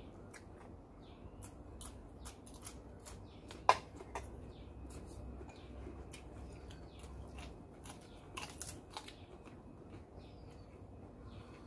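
A person eating close to the microphone: chewing and crunching food, with many crisp clicks and snaps and one louder snap about four seconds in. Birds chirp faintly in the background.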